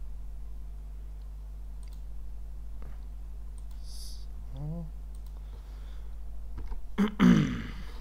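Scattered computer mouse clicks as knife-tool cuts are placed in Blender, over a steady low electrical hum. A brief gliding pitched sound comes about halfway through, and a short louder burst near the end.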